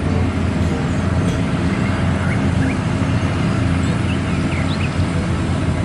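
Truck engine running steadily, a low even hum with no change in pitch.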